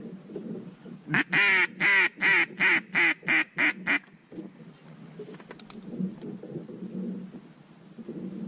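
A duck call blown in a run of about eight loud quacks over three seconds, the first notes the longest, to bring passing ducks in to the decoys.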